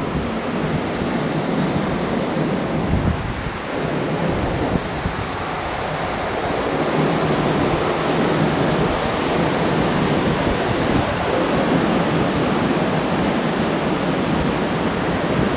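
Ocean surf breaking and washing over rocks, a steady rush, with wind buffeting the microphone.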